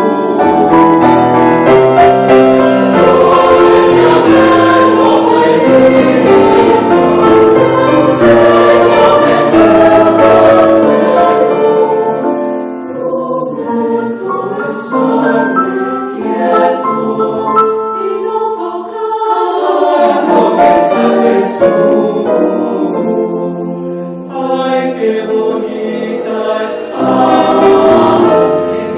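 Music: a choir singing with instrumental backing, getting quieter for a stretch in the middle.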